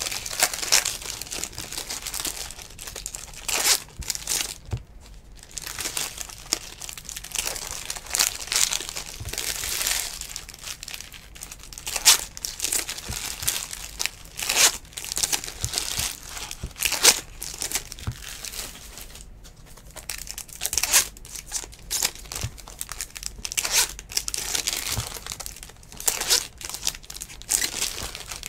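2019 Bowman Baseball hobby pack foil wrappers crinkling and tearing open, mixed with trading cards being shuffled and sorted by hand: an irregular run of crackles and sharp rustles.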